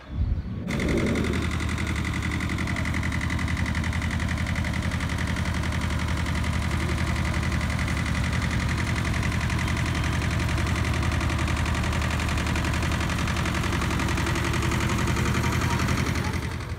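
Vintage tractor engine running steadily as the tractor drives slowly past towing a boat on a trailer, with a brief rise in pitch about a second in.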